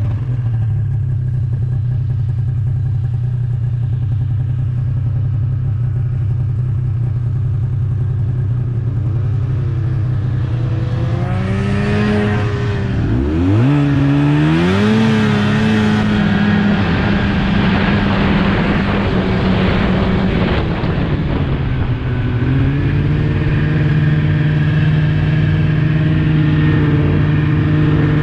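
Snowmobile engine running steadily under a rider. About twelve seconds in, its note drops sharply and climbs back up, with a burst of rushing noise. Near twenty-two seconds it settles at a higher, steady pitch.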